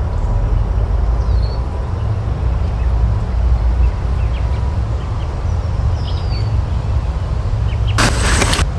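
Outdoor forest ambience: a steady low rumble, like wind on the microphone, with faint scattered bird chirps. A short burst of rushing noise comes near the end.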